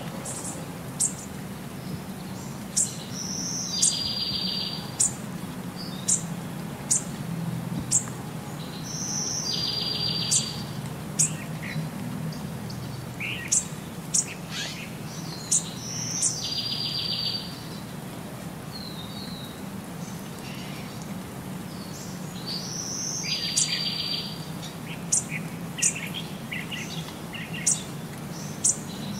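Birds chirping: sharp high chirps and a buzzy trill that repeat in the same pattern about every six and a half seconds, over a steady low hum.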